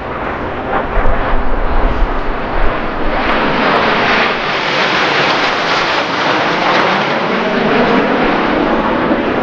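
A formation of jet aircraft flying past, a loud engine rush that swells about three seconds in and holds.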